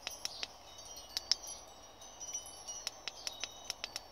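Keypad of a Garmin GPSMAP 557xs chartplotter pressed over and over while scrolling through menus: a quick run of short clicks, some with a brief high beep.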